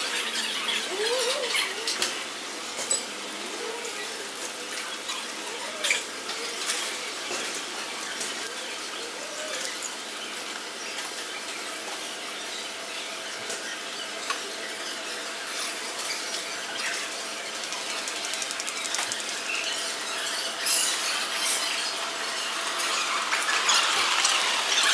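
A series of short squeaks, each rising and then falling in pitch, over roughly the first ten seconds, with scattered clicks. After that a faint steady hum carries on, and a louder rush of noise swells near the end.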